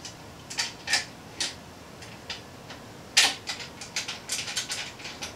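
Small, sharp clicks and taps of hardware being handled while the control box is fitted onto the 3D printer's frame, with the loudest knock about three seconds in and a quick run of lighter clicks after it.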